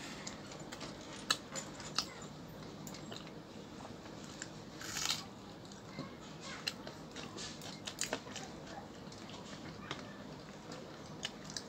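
Two people eating with their hands: faint chewing and scattered small clicks and taps of fingers tearing chapati and picking food off the plates, with a short rasp about five seconds in.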